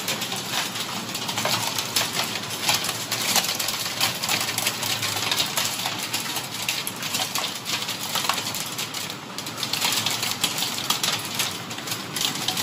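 Heavy hail, a dense, irregular clatter of hailstones striking glass and hard surfaces over a steady rush of rain, heard from indoors behind the window.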